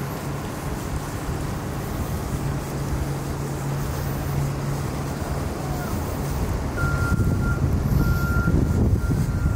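A steady low engine hum, then from about seven seconds in a vehicle's reversing alarm beeping repeatedly, roughly once a second, over a low rumble that grows louder.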